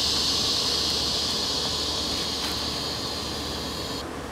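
Steady high-pitched buzzing of an insect chorus, which cuts off abruptly about four seconds in.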